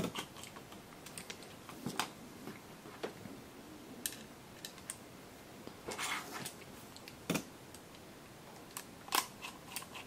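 Scattered light clicks and taps as a small Phillips screwdriver drives screws to fasten a laptop hard drive into an OWC Data Doubler bracket, with hands handling the drive and bracket.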